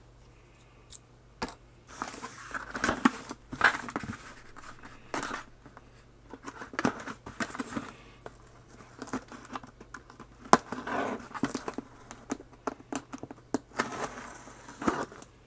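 Packing tape on a cardboard parcel being slit and torn open along the seam: irregular scratching, tearing and crinkling of tape and cardboard, with a sharp click about ten seconds in.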